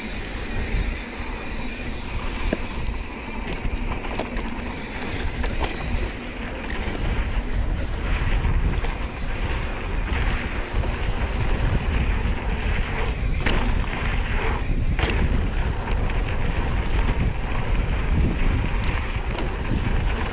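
Specialized Stumpjumper mountain bike rolling fast down a dry dirt singletrack: a steady tyre rumble with wind buffeting the microphone, and a few sharp clicks and rattles from the bike over the bumps.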